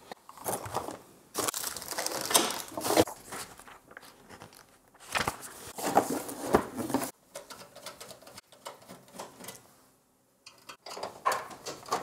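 Packaging being handled: plastic and bubble wrap crinkling and cardboard box rustling in two main bursts, with smaller handling knocks between.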